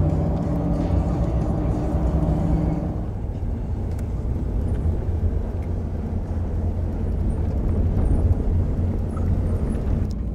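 Steady low rumble, with a few steady hum tones over it that stop about three seconds in.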